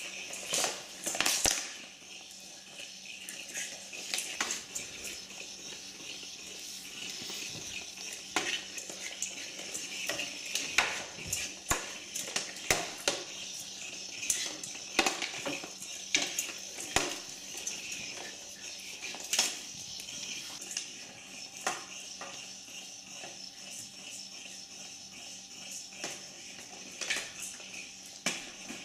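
A battery-powered Weasel Ball toy whirring steadily as it rolls over a hardwood floor, with many sharp clacks and knocks as it bumps about and a puppy scrambles after it.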